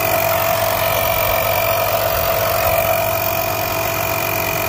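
Greenworks 24 V cordless air compressor running steadily as it pumps air into a truck tyre through a hose on the valve stem, a constant mechanical drone.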